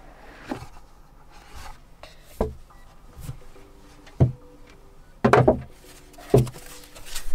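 Cardboard packaging being handled and opened: sliding and rubbing of cardboard with several knocks and thuds, the loudest cluster about five seconds in.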